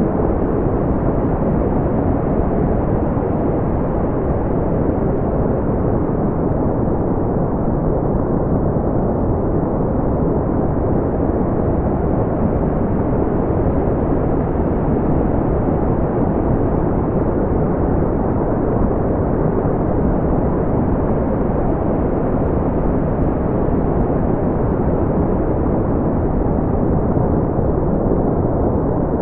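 Steady, smoothed brown noise: an even, deep rumbling hiss with its energy in the low range and the highs cut off, unchanging throughout.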